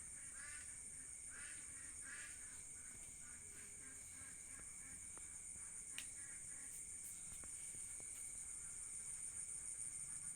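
Faint outdoor ambience: a steady high-pitched insect drone, with bird calls repeating through the first two or three seconds and a single sharp click about six seconds in.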